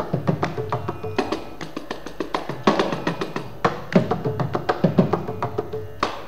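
Mridangam solo in a Carnatic thani avarthanam: fast, dense strokes with ringing pitched notes from the treble head and heavy bass strokes about once a second.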